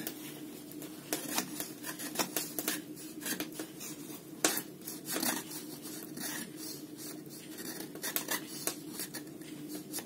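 MCusta folding pocket knife carving a wooden stick: a run of short, irregular scraping strokes as the blade takes shavings off the wood.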